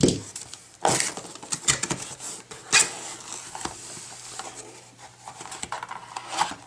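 Cardboard shipping box being opened and handled by hand: flaps scraping and knocking, with a few sharp knocks over rustling of the cardboard packaging.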